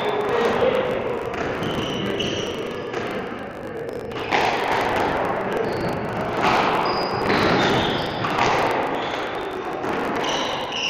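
Squash rally: the ball cracking off rackets and the court walls with a sharp knock every second or two, echoing in the hall, with short high squeaks of court shoes on the wooden floor between shots.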